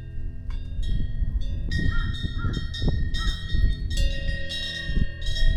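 Small metal bells or chimes tinkling irregularly, many overlapping ringing tones of different pitch, over a gusty low rumble of wind on the microphone.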